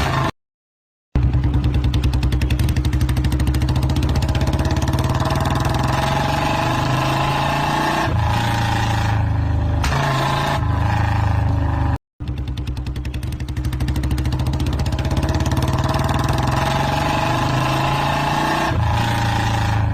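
Royal Enfield motorcycle engine running with a fast, even pulse of firing strokes, revved up and let back down twice. The sound cuts out completely for under a second near the start and drops out again very briefly about twelve seconds in.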